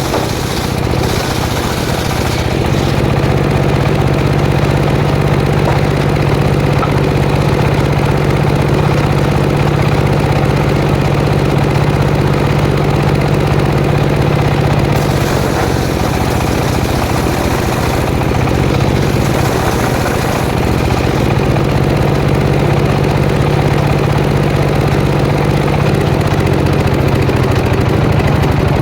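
Petrol engine of a sawmilling saw running steadily, with two stretches of higher hiss around the middle as the blade cuts through jackfruit wood.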